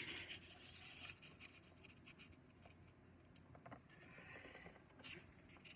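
Faint scratching of a pencil drawing lines on graph paper, a little louder about four seconds in.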